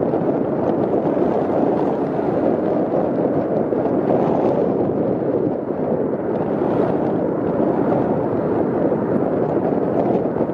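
Wind buffeting the microphone: a loud, steady rushing noise with no clear strokes or tones.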